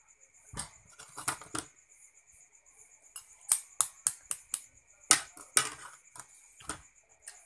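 A metal spoon tapping the shell of a boiled balut duck egg to crack it, as sharp separate taps. A quick run of about five taps comes in the middle, and the loudest taps come a little after.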